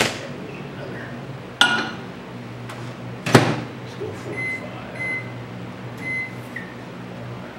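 Microwave oven being loaded and shut. A couple of knocks, then the door closing with a thud a little over three seconds in, followed by three short keypad beeps as the time is set, over a steady low hum.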